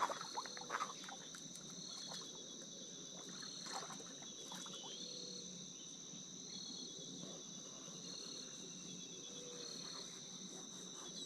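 Faint, steady high-pitched insect chirring, with a short repeating pulse about once a second. A few light clicks come near the start.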